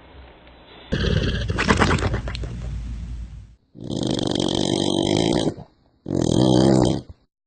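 Snoring in three short clips cut one after another, each stopping abruptly. The first is a rough, rattling snore; the next two are more pitched and droning.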